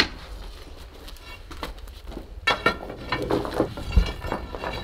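Scattered knocking and clattering of broken material and debris being worked loose during demolition. It starts with a sharp knock, and a heavy thump comes about four seconds in.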